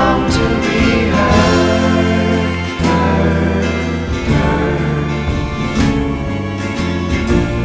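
Background music: a pop song with steady bass notes, guitar and a regular beat.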